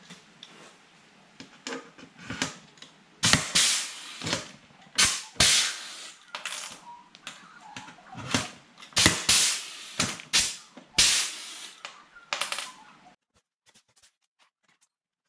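Hand-held pop rivet gun setting rivets through a rod holder flange into aluminium checker plate: a series of sharp clacks and snaps as the handle is squeezed and the rivet mandrels break, some coming in quick pairs, stopping about thirteen seconds in.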